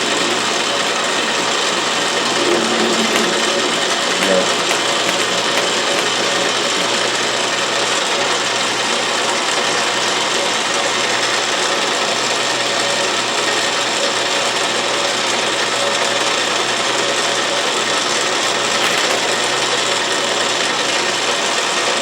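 Autobox 8x16 mini lathe running slowly, its motor and gear train giving off a steady, even mechanical noise.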